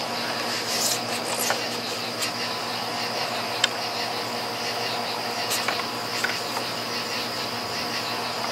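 Steady night chorus of crickets chirring, with a few light clicks, the sharpest about three and a half seconds in.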